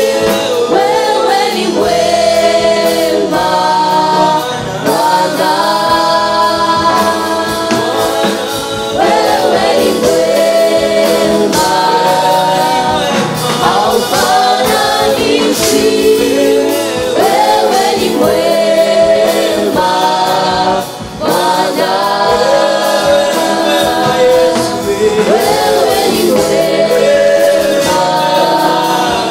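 Gospel song sung by a group of male and female voices in harmony.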